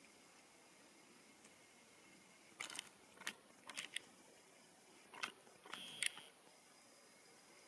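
European badgers crunching leftover chicken feed: a handful of short, crisp crunches in the middle, against near silence.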